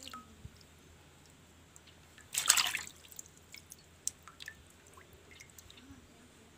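Water dripping and sloshing as a cleaned crab is rinsed by hand in a basin of water, with one short louder splash about two and a half seconds in.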